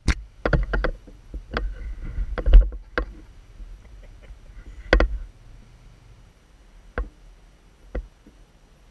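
Irregular sharp knocks and thumps over a low rumble, the loudest about two and a half seconds in and another strong one about five seconds in, then two single knocks near the end.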